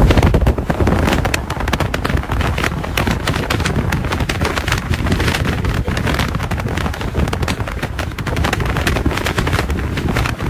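Wind and road noise on a phone microphone: a steady low rumble with dense crackling.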